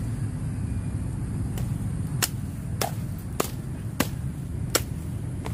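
A series of sharp knocks or strikes, about one every half-second or so, over a steady low rumble.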